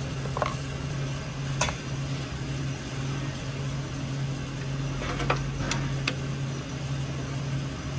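A few sharp metallic clinks of a hand wrench against the motor mount bolts and engine block, over a steady low hum. One clink comes early, one about a second and a half in, and a small cluster comes about five to six seconds in.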